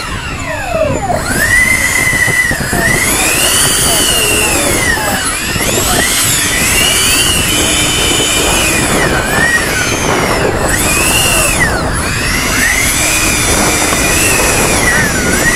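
Electric ducted-fan motors of several model airliners whining, their overlapping tones rising and falling again and again as the throttles are opened and closed for taxiing.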